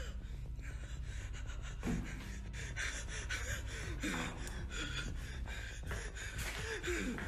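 A man breathing heavily, panting and gasping, with brief muttering and scattered rustling clicks.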